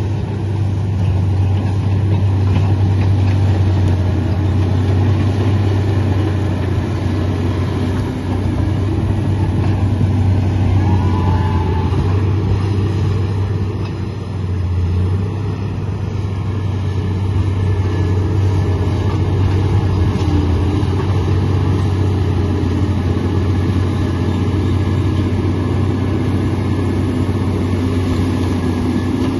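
Komatsu D85 bulldozer's diesel engine running steadily under work, with a deep low hum and brief dips in loudness about eight and fourteen seconds in.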